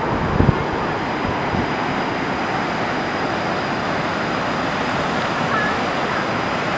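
Steady rushing of a waterfall and river in a rocky gorge, with a couple of low wind bumps on the microphone about half a second in.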